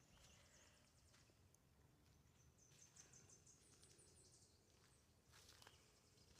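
Near silence: faint outdoor woodland ambience, with a faint run of high chirps about halfway through.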